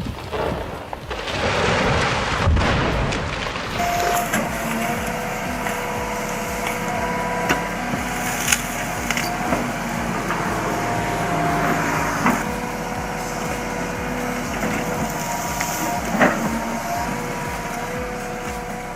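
Heavy forestry machinery running, a steady engine and hydraulic whine that shifts in pitch now and then, with a few sharp cracks and knocks. A loud rushing noise fills the first couple of seconds.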